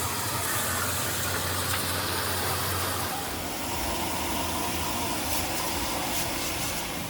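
Steady mechanical running noise with a constant hiss, its low hum dropping away about three seconds in.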